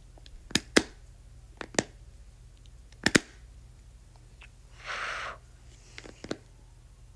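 Sharp taps and clicks close to a phone's microphone as the phone is handled, mostly in quick pairs, with a short rustle or breath-like hiss about five seconds in.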